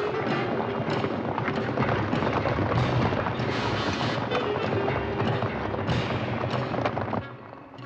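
Many horses galloping together in a cavalry charge, a dense mass of pounding hoofbeats, mixed with an orchestral film score. The din cuts off abruptly near the end.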